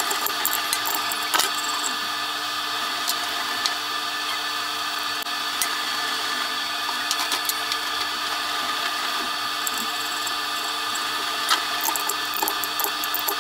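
Steady machine hum around a stopped CNC router spindle, with scattered metallic clicks and clinks as a wrench loosens the collet nut and the collet and cutting bit are changed.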